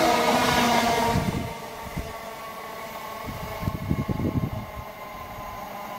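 Electric multiple-unit train passing at speed: a loud rush of wheels and motors with steady humming tones, which drops away sharply about a second in as the last coach clears. After that comes a quieter rushing noise with a few low, gusty rumbles.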